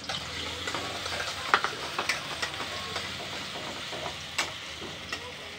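Chopped onion sizzling in hot oil in a metal kadhai while a steel spoon stirs it, the spoon clicking against the pan a few times.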